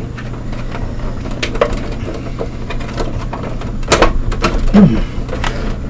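Brittle plastic of a Blueberry iMac G3's inner frame creaking and cracking as it is pried apart. There are sharp snaps about a second and a half in, around four seconds in and near the end, the loudest around four to five seconds in.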